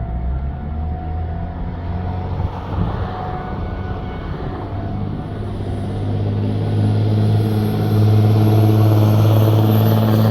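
A motor vehicle's engine running with a steady low hum, growing louder over the last few seconds.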